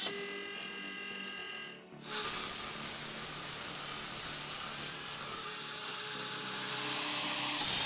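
Machine noise: a motor whining at a steady pitch, then about two seconds in a sudden switch to a louder, even hissing noise that shifts abruptly twice more.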